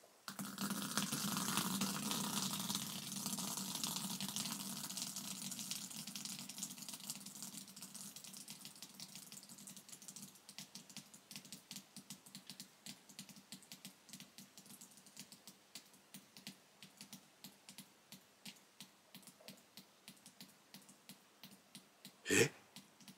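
Beer foam fizzing as it wells up out of a freshly full-opened Asahi Super Dry Nama Jokki can. The fizz fades into sparse crackling and popping as the bubbles burst. A short, louder sound comes near the end.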